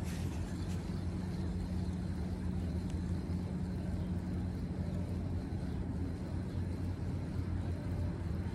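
A steady, low mechanical hum.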